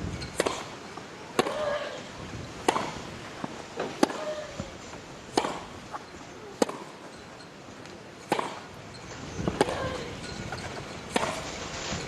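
Tennis ball struck back and forth by rackets in a rally: about nine sharp hits, roughly one every second and a quarter.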